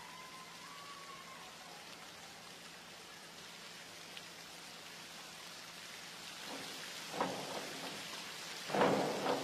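A steady, rain-like hiss of water in the diving pool. From about two-thirds of the way through, crowd voices and cheering rise over it.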